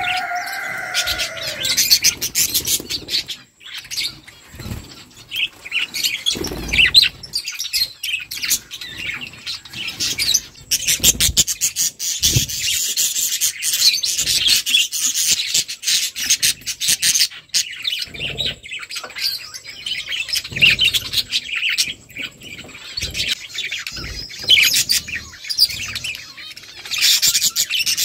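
A flock of budgerigars chirping and chattering continually, with scattered sharp clicks and short low thumps among the calls.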